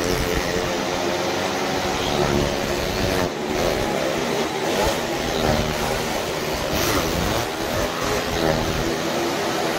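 Motorcycle engines running hard as the riders circle the wall of a well-of-death drum. The pitch swells and falls over and over as the bikes go round.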